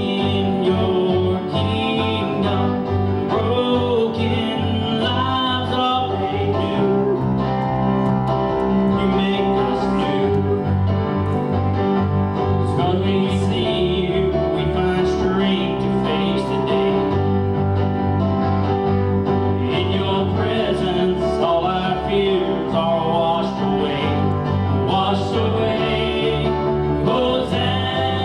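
Gospel worship music: singing over a band with guitar and a bass line that steps between notes.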